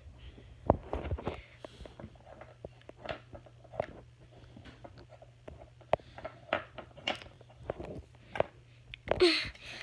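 Small toys being handled on a wooden dresser top: scattered light clicks and knocks, over a steady low hum. Near the end there is a short vocal sound that falls in pitch.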